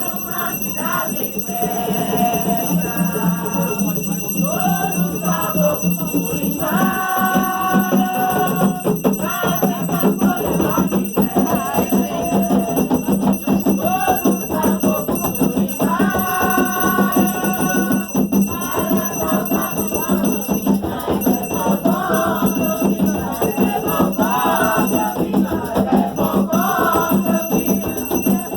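Group of voices singing a chant together, over rattles shaken in a steady rhythm.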